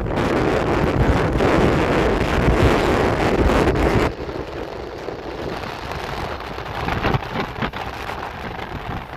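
Wind buffeting the helmet-mounted microphone of a motorcycle riding along a road, a loud, steady rushing that drops suddenly to a lower, more uneven rush about four seconds in.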